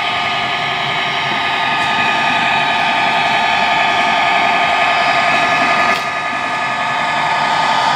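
Sound decoder in a model Class 66 diesel locomotive playing its diesel engine sound through a small onboard speaker: a steady, thin drone without deep bass. It grows a little louder as the locomotive comes nearer.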